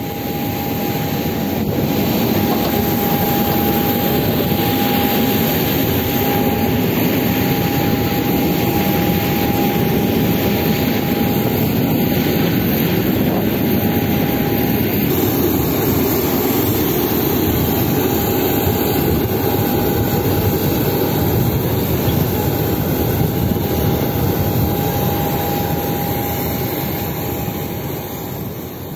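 Steady roar of an airliner's jet turbine running on the apron, with a thin steady whine above it, fading out near the end.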